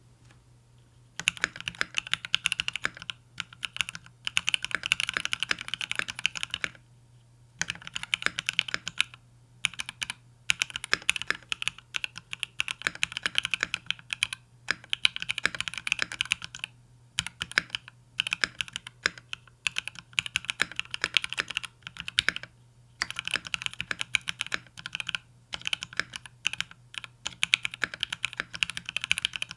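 Typing on an XO K80 mechanical keyboard with a polycarbonate case, lubed Durock L4 switches and macaron XDA-profile PBT keycaps. The keystrokes come in fast runs with brief pauses between them, starting about a second in.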